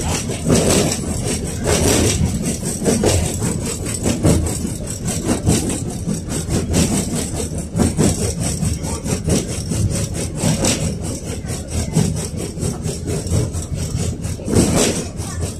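KTM-5 (71-605A) tram running along the track, heard from inside the car: a low rumble of the wheels and bogies on the rails with a dense, continuous rattling of the car body.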